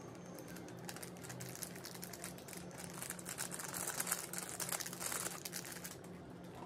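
Plastic seasoning sachets crinkling as they are torn open and emptied over instant noodles, a run of small crackles that grows densest about three to five seconds in.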